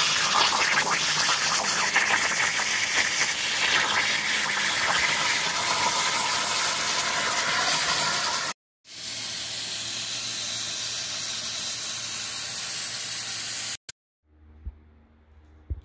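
CNC plasma cutter torch cutting sheet metal: a loud, steady hiss of the plasma arc and air jet. It drops out for a moment about halfway, resumes, then stops about 14 seconds in, leaving a faint low hum.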